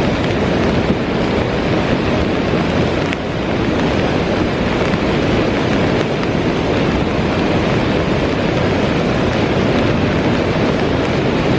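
Waterfall rushing: a loud, steady wash of falling water with no pauses.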